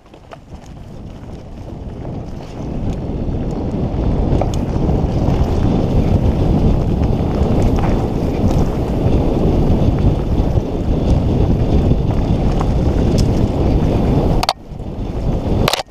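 Wind rushing over a helmet camera's microphone, with the rumble and rattle of a mountain bike rolling fast down a dirt trail, building over the first few seconds as speed picks up. Near the end the sound drops out briefly twice, each time with a sharp click.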